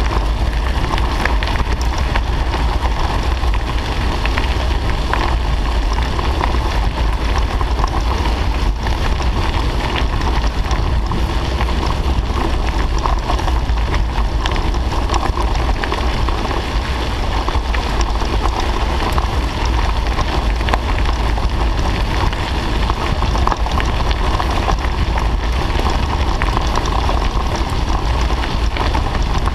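Bicycle tyres rolling steadily over a gravel road, a continuous crackling hiss, with wind rumbling on the microphone.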